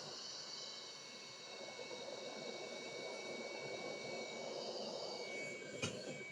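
Hot air rework station blowing: a steady airy hiss with a faint high whine, and a single sharp click near the end.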